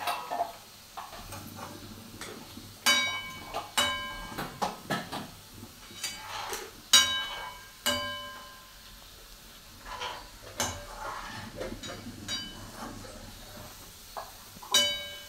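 A steel spoon stirring and scraping food in a steel cooking pot on a gas stove, with several sharp, ringing clanks of metal on metal as the spoon knocks against the pot.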